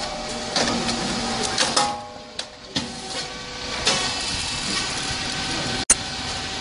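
Rice cake popping machine running: a steady mechanical hum with several sharp clacks, then a brief dropout near the end.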